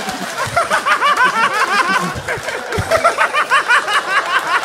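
People laughing hard at a roast joke: a continuous run of quick, repeated high-pitched laughs.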